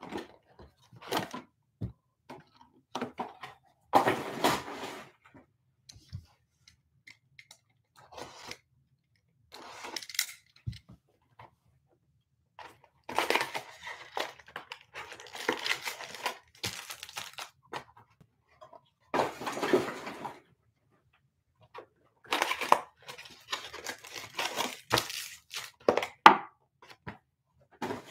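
Foil trading-card pack wrappers crinkling and being torn open by hand, along with cardboard card-box handling. The sound comes in irregular bursts with short pauses between them.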